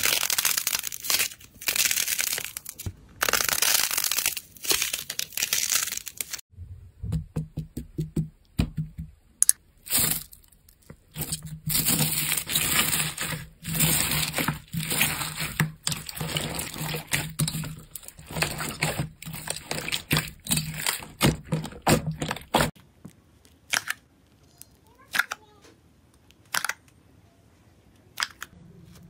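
Hands stretching and tearing thick slime, giving dense crackly tearing sounds, then kneading slime mixed with small foam beads, giving short repeated crunchy squishes. Near the end it turns quiet, with only a few faint pops as an arm presses into soft jelly slime.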